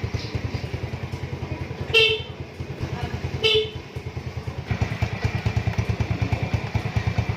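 Motorcycle engine running with a steady rapid pulse, with two short honks of the electric horn, about 2 and 3.5 seconds in, working normally on an electrolytic capacitor fitted in place of a weak battery. The engine gets louder about two-thirds of the way through.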